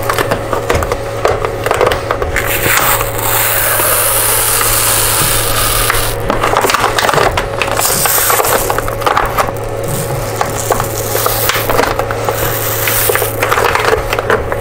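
Adhesive printer-bed sheet being peeled off mirror glass, crackling and tearing as the glue lets go, over a steady low hum.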